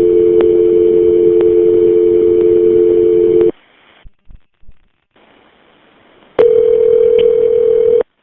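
Telephone line tones during a call transfer: a steady two-note dial tone that cuts off about three and a half seconds in. A few faint clicks follow, then a single ringback tone of about a second and a half near the end.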